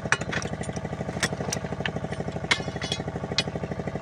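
A small engine running steadily with an even, fast pulse, and a few sharp metallic clinks over it.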